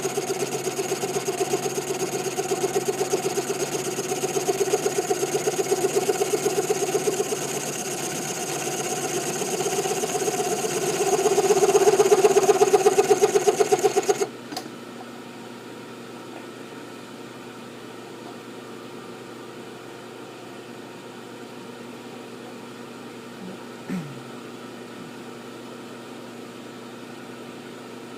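Milling machine cutting a slot into a steel M1911 pistol slide, a loud, evenly pulsing machining sound that grows louder shortly before it stops abruptly about halfway through. After that a quieter steady hum continues, with one small click near the end.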